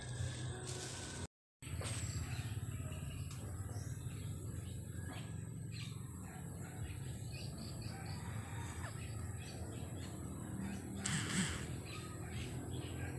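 Outdoor ambience of birds chirping over a steady high-pitched drone, with a short louder burst of noise about eleven seconds in. The sound drops out completely for a moment a little over a second in.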